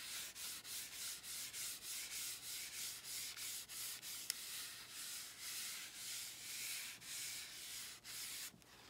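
Cotton shop towel rubbed back and forth over an oil-primed masonite panel wet with raw umber oil paint, evening out the paint coat in quick, even strokes. The rubbing stops shortly before the end.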